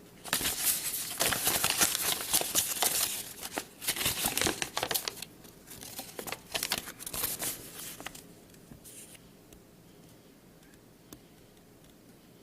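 Paper instruction manual being unfolded and handled, crinkling and rustling. The crinkling is dense for the first five seconds, then sparser, and dies away after about eight seconds.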